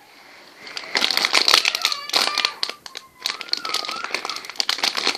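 Crinkly plastic wrapper of a packaged snack cake being squeezed and handled, crackling in bursts from about a second in, with a short break near the middle.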